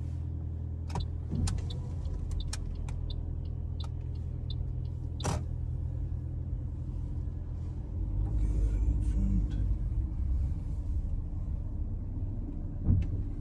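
Toyota Yaris heard from inside the cabin, a low steady running hum as the car moves off and drives slowly, getting louder about eight seconds in. Scattered light clicks through it and a sharper knock near the end.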